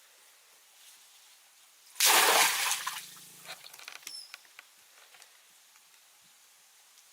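A sudden loud splash of water about two seconds in, trailing off into scattered drips and small splashes.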